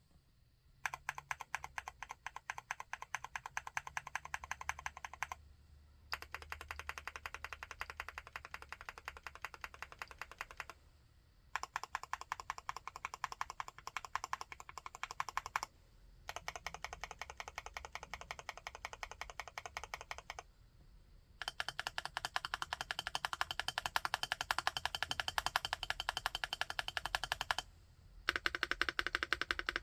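Typing on a 75% mechanical keyboard: rapid keystrokes in about six bursts a few seconds long, with short pauses between them. The last burst, near the end, has a deeper tone than the rest.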